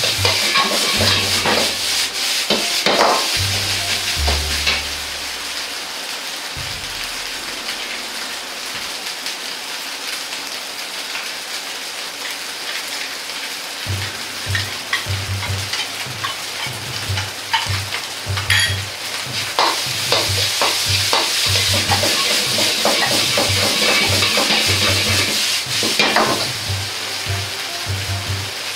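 Fried rice sizzling in a carbon-steel wok while a steel ladle scrapes and clacks against the wok as the rice is stirred. In the second half a steady rhythmic low knocking runs under the sizzle.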